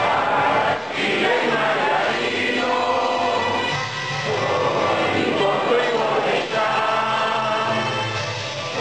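A standing crowd singing together, many voices as one choir, with notes held for about a second at a time.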